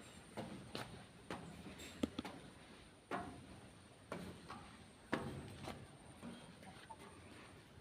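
Footsteps climbing the stairs of a watchtower: a string of irregular thuds, roughly one a second, some falling in quick pairs.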